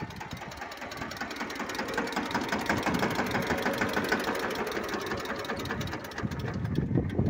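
Mahindra Yuvraj tractor's single-cylinder diesel engine idling up close after a remote start, a rapid, even knocking beat.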